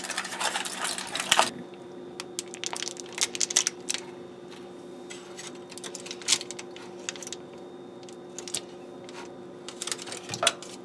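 Aluminum foil crinkling as it is pulled back from a slab of fudge: a dense rustle for the first second and a half, then scattered crackles and ticks. A steady low hum runs underneath.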